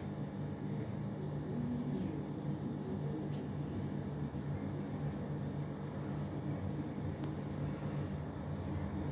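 An insect chirping steadily in the background: a high, evenly pulsed call, about four pulses a second, over a low steady hum.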